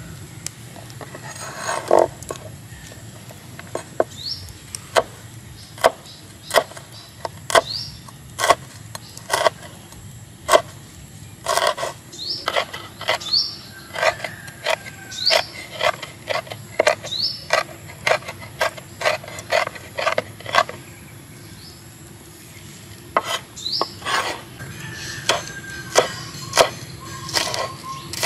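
A large kitchen knife chopping red chillies on a wooden cutting board: sharp knocks of the blade on the wood, irregular, about one or two a second, with short pauses between runs of strokes.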